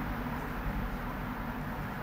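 Steady low rumble with a hiss over it: background noise of distant road traffic.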